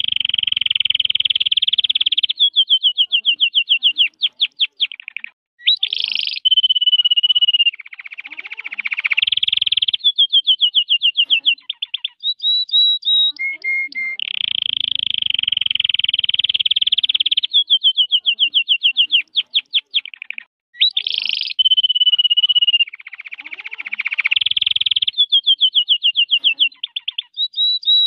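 Red factor canary singing a long, continuous song of fast trills and rolling passages with a few held whistled notes. The same run of phrases starts over about halfway through.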